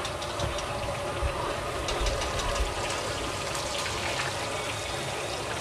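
Stir-frying in a large metal wok: a steady sizzle, with metal spatulas clinking and scraping against the wok from time to time.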